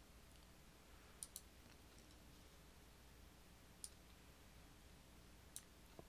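Faint computer mouse clicks against near silence: a quick pair about a second in, then single clicks near the middle and near the end.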